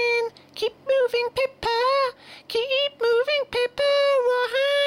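A high-pitched singing voice in a soundtrack song, holding notes in a short melody with brief breaks between phrases.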